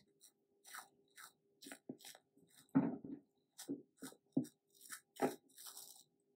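Dried peel-off face mask coming away from the skin of the cheek: short, irregular soft crackles as the film is peeled off, the loudest about three seconds in and again a little after five seconds.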